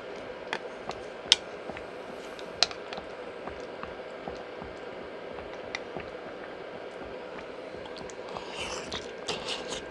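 Dumpling soup boiling hard in a pot with a steady bubbling hiss, broken by a few sharp clicks. Close-miked wet chewing starts near the end.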